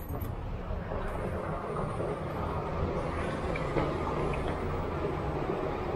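Steady low rumbling outdoor background noise, even throughout, with no clear single event.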